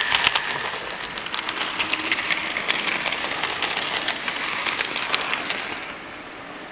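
Model railway train, a locomotive hauling coaches, running past close by, its wheels clicking rapidly and unevenly over the track joints. The sound dies away about six seconds in as the train moves off.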